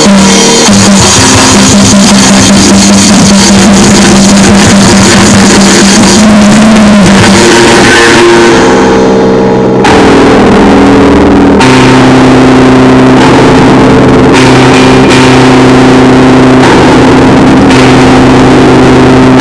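Noisecore / harsh noise music: a wall of heavily distorted noise at constant full loudness, with sustained droning pitches that shift about ten seconds in and again a couple of seconds later.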